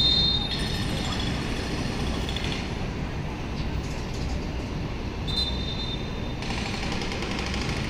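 Steady low outdoor rumble, like distant traffic or wind on the microphone, under a wide hiss. A brief high, steady two-note tone sounds at the very start and again about five seconds in.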